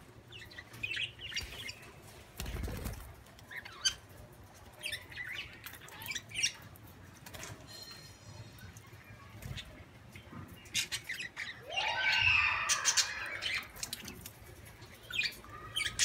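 Budgerigars chirping and squawking in short scattered calls, with wing flaps, clicks and a dull thump about two and a half seconds in. The loudest, busiest burst of calls comes about twelve seconds in.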